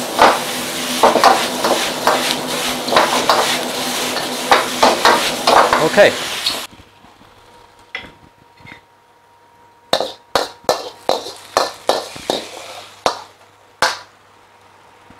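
Stir-fry sizzling in a metal wok over a gas wok burner, with a metal ladle clanking against the wok as the food is tossed; the noise cuts off suddenly about six and a half seconds in. Later comes a quick run of sharp metallic scrapes and clinks as the ladle scrapes the food out of the wok onto a ceramic plate.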